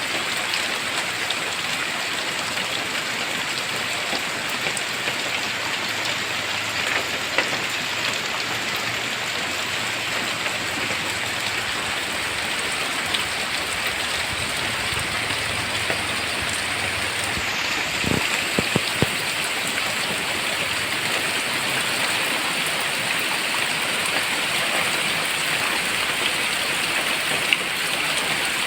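Steady rain falling, a constant even hiss with occasional sharper drop taps, including a short cluster about two-thirds of the way through.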